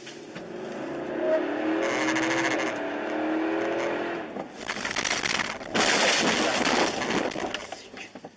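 A car driving, heard from inside the cabin: engine running with a steady hum of tones and road noise building over the first couple of seconds, then a louder rush of noise in the second half.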